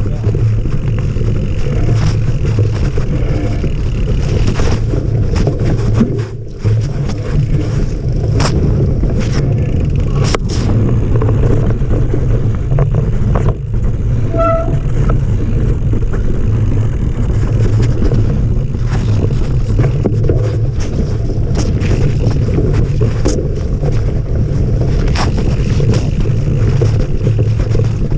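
Mountain bike ridden fast down a dirt forest trail, heard from a chest-mounted action camera: a steady low rumble of tyres on dirt and wind on the microphone, with frequent clicks and knocks as the bike rattles over roots and rocks. A brief squeak about halfway through.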